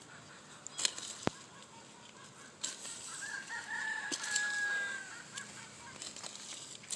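A rooster crows once, one long call from about three seconds in that lasts around two seconds and is the loudest sound here. Under it a hoe scrapes and chops dry soil, with a couple of sharp clicks of the blade near the start.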